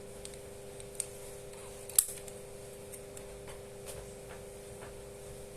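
Small plastic-and-spring clicks from a needle-free injector pen being handled and tried, with one sharp click about two seconds in and a few fainter ticks, over a steady low hum.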